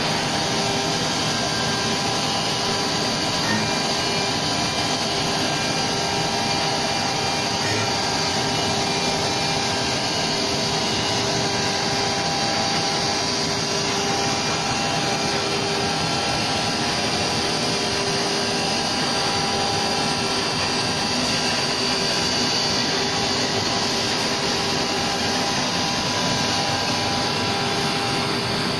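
Large CNC wood router with carousel tool changer running: a steady whir of spindle and machinery with a few faint steady tones.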